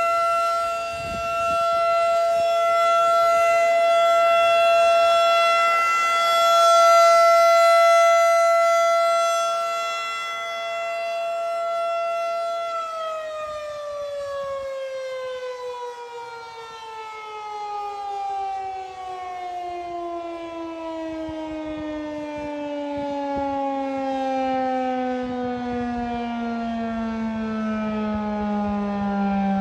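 Federal Signal 2001 DC outdoor warning siren sounding its steady alert tone for a tornado drill. About 13 seconds in it shuts off and winds down, its pitch falling steadily as the rotor slows.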